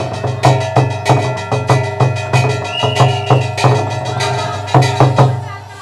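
Percussion-led instrumental passage from a Lakhon Bassac theatre ensemble: sharp drum and wood-block strikes about three a second over sustained pitched notes, fading near the end.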